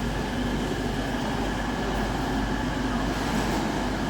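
Coal train hauled by a Class 66 diesel-electric freight locomotive passing steadily through the station, its engine and wheels making a continuous noise with a steady low hum.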